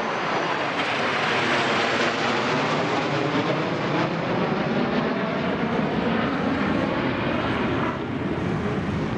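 Propeller aeroplane engine droning steadily, easing off slightly about eight seconds in.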